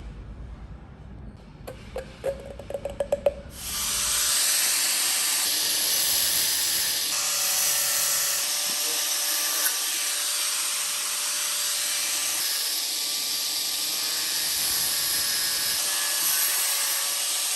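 A power tool running steadily at constant speed, preceded by a quick run of clicks about two seconds in.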